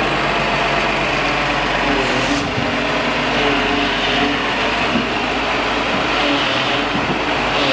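Diesel engine of a Hyundai Robex 250NLC-3 crawler excavator running steadily.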